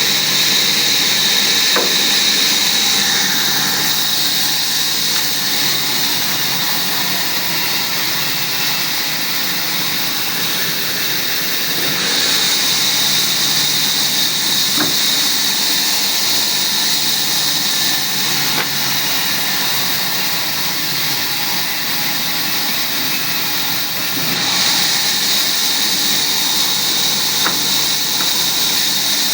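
Powered woodworking machine running steadily, a continuous noisy hiss with a strong high whine and a low hum, its tone shifting a few times.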